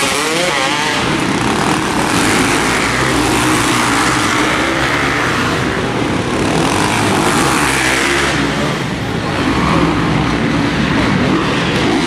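Several motocross bikes racing together, their engines revving up and dropping back over and over as the riders take the jumps and turns, with the sound ringing around an indoor arena.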